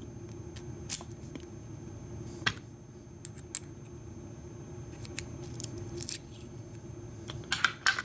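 Light metallic clicks and clinks of a brass padlock cylinder and plug being handled while the lock is taken apart with a plug follower, scattered irregularly, with a sharper cluster of clicks near the end.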